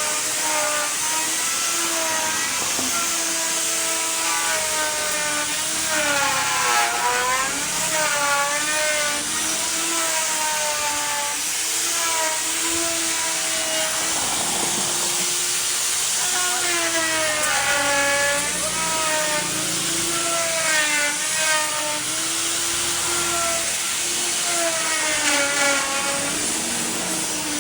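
Electric power tool running through wood, its motor hum sagging in pitch and recovering again and again as it takes and sheds load, with a steady hiss over it.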